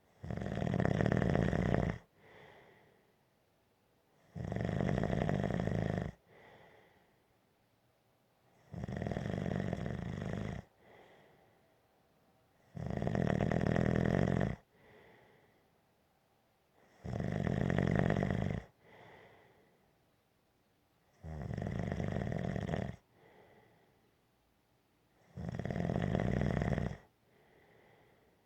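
Snoring in a slow, even rhythm: seven loud snores, each about two seconds long and about four seconds apart, with a much fainter breath sound after each one.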